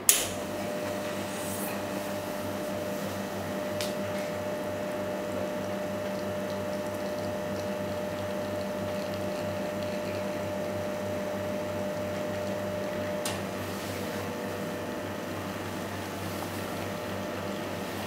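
Casadio Undici espresso machine pumping water through the coffee during a shot extraction: a steady, even hum, starting with a sharp click.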